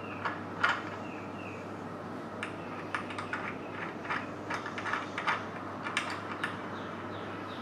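A wrench tightening the nuts on a door latch's threaded bolt: a string of small, irregular metal clicks and taps.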